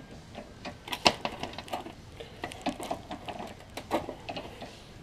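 Spanner working the nut of a sway bar end link: a string of irregular metallic clicks and taps, the sharpest about a second in.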